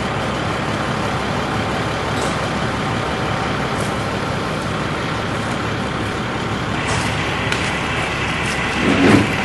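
Steady engine noise of a large truck running close by, with a brief louder burst about nine seconds in.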